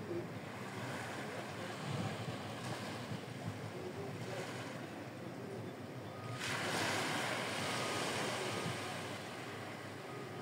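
Small surf washing onto a sandy beach, with wind on the microphone. The wash swells up suddenly and louder about six seconds in, then eases off.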